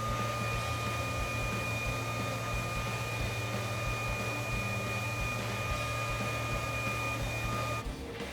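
A steady electric appliance hum with a constant high-pitched whine, cutting off suddenly near the end.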